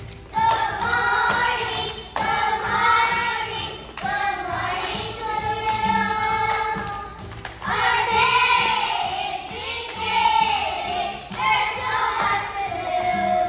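A group of young children singing a song together, with music.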